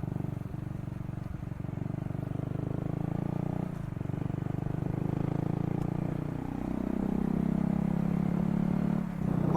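Motorcycle engine running while ridden. The engine note dips about four seconds in, then rises and holds higher as it speeds up again.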